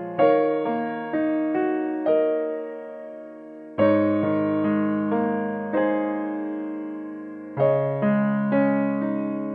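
Background music: a slow electric-piano piece, notes struck one after another and left to fade, with fuller chords about every four seconds.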